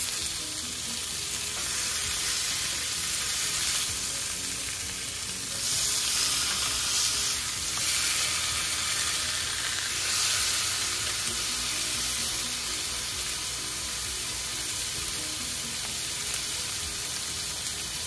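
T-bone steaks sizzling in a hot oiled cast-iron grill pan, a steady frying hiss that gets louder for a few seconds about six seconds in and again around ten seconds in.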